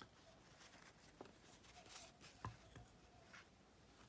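Near silence with a few faint, light clicks from small parts being handled, the clearest about a second in and two and a half seconds in.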